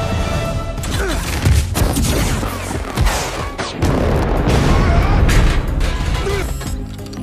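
Action-film sound mix: explosions, crashes and impacts over a music score, with the loudness easing off near the end.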